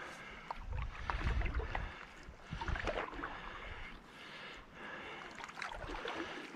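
Canoe paddle strokes: the blade swishes and splashes through the water a few times, with low wind rumble on the microphone between strokes.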